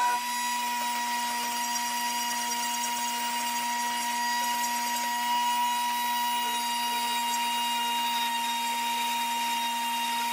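Rotary tool with a flex-shaft handpiece running at a steady speed, its small burr bit grinding into the wood of a carved wand: a constant high whine over a grinding hiss.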